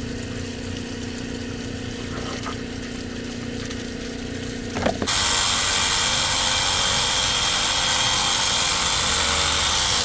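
Steady hum of a small pump motor, then about halfway through a loud power tool starts and runs steadily, cutting off suddenly.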